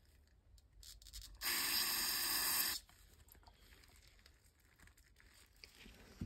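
Aerosol carburetor cleaner sprayed through its extension straw into the ports of a weed eater carburetor, flushing out gunk: one hiss of about a second and a half that starts about a second and a half in and cuts off sharply. Faint handling clicks come before it.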